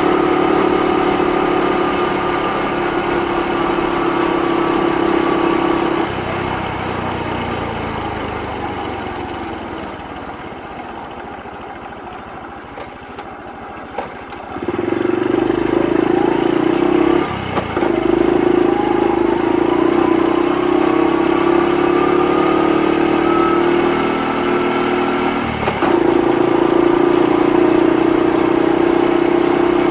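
Honda Super Cub 50's single-cylinder four-stroke engine and exhaust running steadily under throttle. About six seconds in the throttle is closed and the engine winds down towards idle as the bike slows. About halfway through it pulls away again with rising revs, broken by two brief dips as it shifts up a gear.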